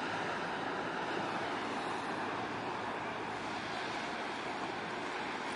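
Steady outdoor ambient noise: an even wash like distant surf and wind, with no distinct events standing out.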